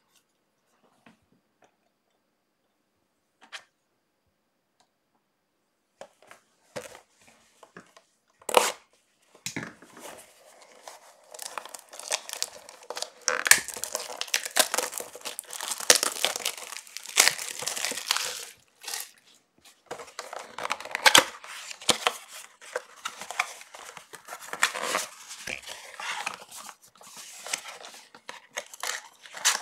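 Trading-card pack wrappers being torn open and crinkled by hand: irregular crackling and tearing that starts about six seconds in and grows dense, continuing to the end.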